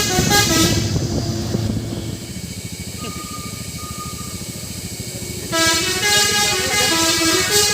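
Telolet multi-tone truck horn playing a tune. It breaks off about a second in, leaving the truck's engine running with an even low pulsing, then starts the tune again about five and a half seconds in.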